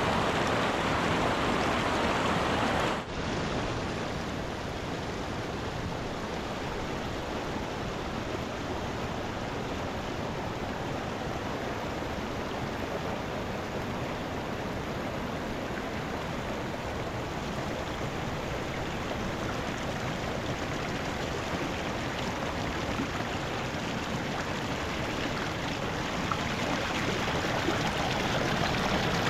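Mountain river flowing: a steady wash of water noise. It drops out for an instant about three seconds in and comes back a little quieter, swelling slightly near the end.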